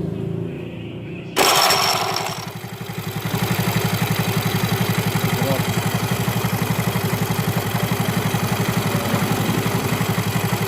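An engine is started on its rebuilt electric starter motor: a brief, loud crank about a second in, then the engine catches and settles into a steady idle with an even, fast pulse. The starter had been fitted after a harsh grinding start, caused by a worn-thin armature and worn magnets.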